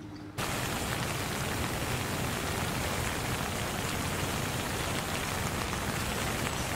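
A steady, even hiss like rain falling, starting abruptly about half a second in.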